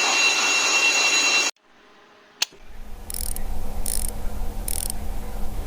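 Workshop mechanical noises: a loud steady whine that cuts off suddenly, a single click, then a low steady hum with three short hissing bursts evenly spaced.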